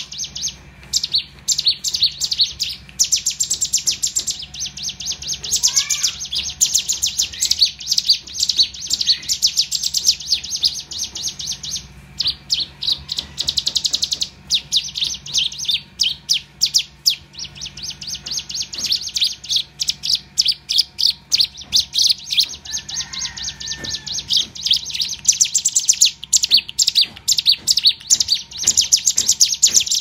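Caged prinia (ciblek gunung) giving fast, dry runs of high ticking chirps, many a second, with brief pauses between runs. This is the aggressive fighting song it is learning.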